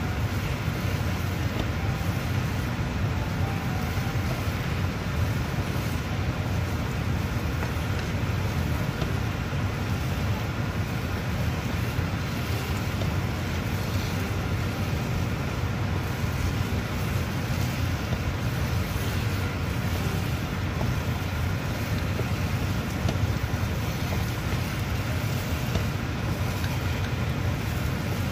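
A steady low rumbling noise that holds even throughout, with no distinct knocks or scrapes standing out.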